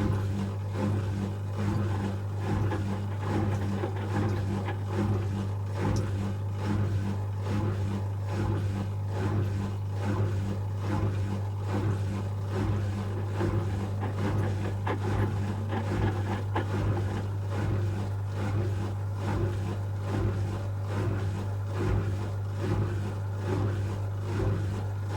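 Asko Quattro W6098X front-loading washing machine running through its first rinse: a steady low hum with a regular pulsing over it.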